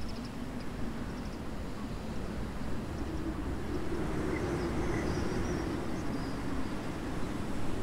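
Wind buffeting the microphone and rustling the grass and trees, with a distant engine drone swelling up in the middle and a few faint bird chirps.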